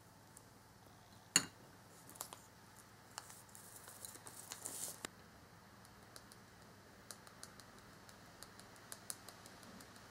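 Handling and crinkling of a small paper packet, with one sharp click early in, then light repeated ticks of a small mesh tea strainer being tapped to sift powdered sugar over a candy house.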